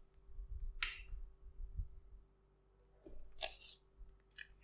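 Handling noise from unpacking a tabletop wet grinder in its cardboard box. There are low bumps, a sharp click about a second in, a short rustle around three and a half seconds in, and small clicks near the end, as the plastic stone holder is lifted out of the stainless steel drum.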